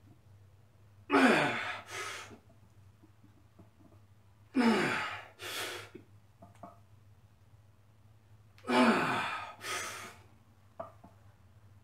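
A man's heavy effort breathing through barbell front squat reps: three loud exhales, each dropping in pitch into a grunt and followed by a quick second breath, about every three and a half seconds. A steady low hum underneath.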